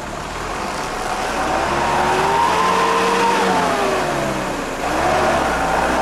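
Heavy vehicle's engine revving. Its pitch rises for about two seconds, falls back, then jumps up again about five seconds in.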